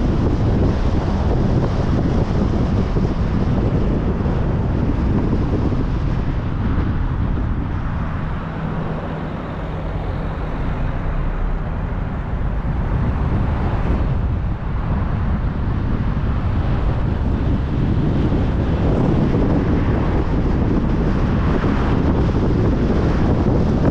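Steady road and wind noise of a car driving on a motorway: tyres and rushing air, easing a little in the middle and building back up.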